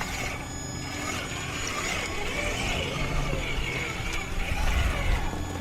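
Traxxas TRX-4 RC crawler driving: its electric motor and gearing whine, wavering in pitch over a steady rumble.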